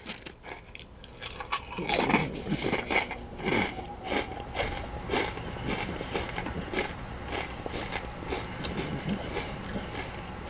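A person biting into and chewing baked potato chips: a run of crisp crunches, loudest from about two seconds in, then settling into steadier, smaller chewing crunches.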